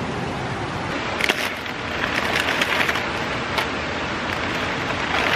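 Plastic food packaging from an MRE being handled and opened, crinkling and crackling in short spells about a second in and again from two to three seconds, over a steady rushing background noise.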